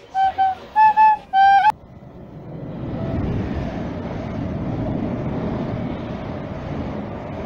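A short flute-like melody stops abruptly about a second and a half in; then a Greater Anglia Class 90 locomotive and its coaches pass through the station at speed, an even rush of wheels on rail that builds up and then holds steady.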